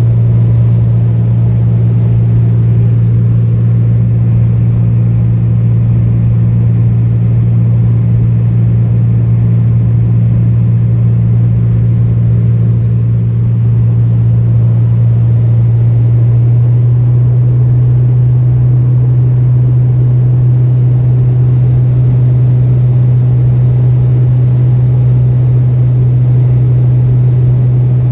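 Light high-wing plane's engine and propeller droning steadily, heard inside the cabin on approach to landing. The drone's pitch shifts slightly about sixteen seconds in.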